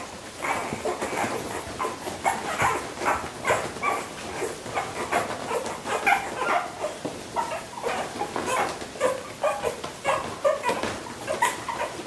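Lagotto Romagnolo puppies yipping and whimpering, short high calls coming two or three a second without a break.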